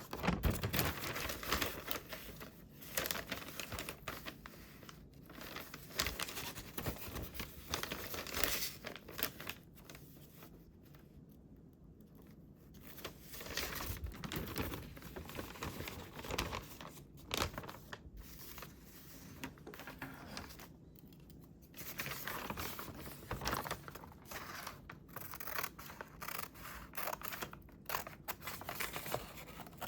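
Paper being handled, torn and cut for a scrapbook: irregular rustling, crinkling and tearing, with short sharp snips, and a quieter few seconds near the middle.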